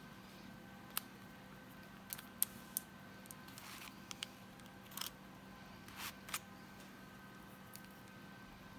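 Small sharp clicks and a few short scraping strokes from handling nail-stamping tools (polish bottle, metal stamping plate, scraper and stamper), scattered over several seconds over a faint steady hum.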